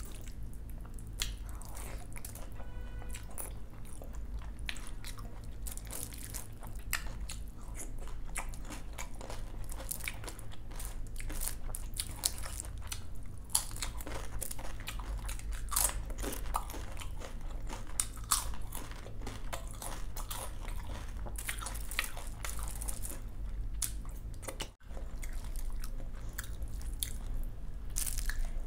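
Close-miked eating sounds: chewing and crunching mouthfuls of curd rice with fried vegetable sides, eaten by hand, with many sharp wet clicks of mouth and food.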